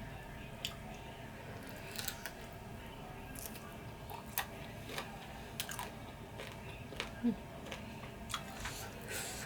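Close-miked mouth sounds of someone eating chicken wings: scattered wet clicks, smacks and crunches of chewing, with a brief hum about seven seconds in.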